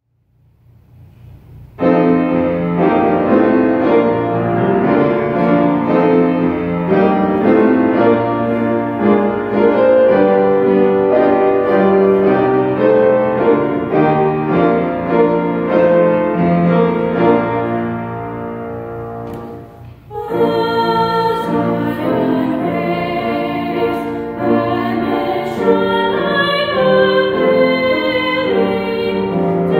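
Piano playing an introduction, then about twenty seconds in two young female voices start singing a sacred song together over the piano accompaniment.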